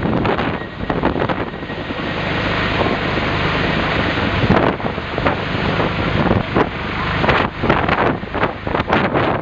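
Firefighting helicopter running, a steady engine and rotor noise, with heavy wind buffeting the microphone in irregular gusts over the second half.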